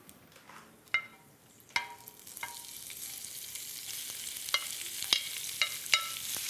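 Pre-cooked chicken strips sizzling in olive oil on a hot grill pan, being stirred, with several sharp clinks of the utensil against the pan. The sizzle starts about two seconds in and grows louder.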